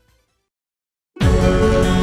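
Music fading out into about a second of silence, then loud music starting abruptly a little over a second in.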